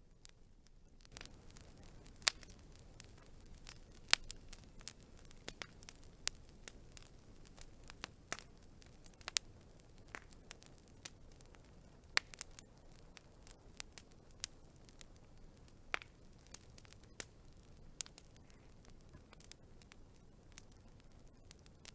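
Wood fire burning, crackling with irregular snaps and sharper pops every second or two over a soft steady hiss of the flames.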